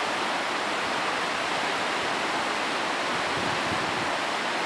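River water rushing steadily as it flows fast and churning below a dam.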